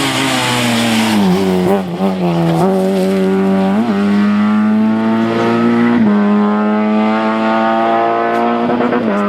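Rally car engine pulling hard through the gears: each gear's note climbs, then drops abruptly at the next upshift, about six shifts in all.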